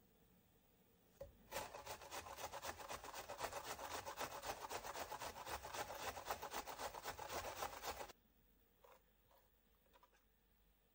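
A red onion being coarsely grated on a stainless steel box grater: rapid, even rasping strokes, several a second, starting about a second and a half in and stopping abruptly near the eight-second mark, followed by a few faint taps.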